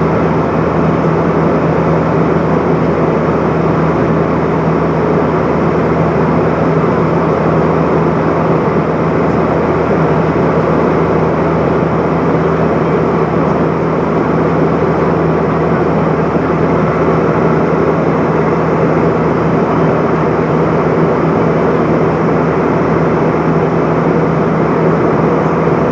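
Steady cabin noise of an Airbus A320-232 in flight: the whoosh of its IAE V2500 turbofan engines and the air rushing past the fuselage, heard from a window seat over the wing. A constant low drone runs under it.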